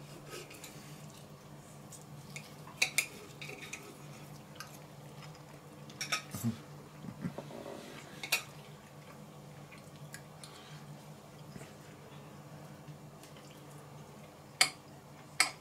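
Cutlery clinking on a plate while eating, a scattered handful of sharp clicks a few seconds apart, some in quick pairs, over a faint steady low hum.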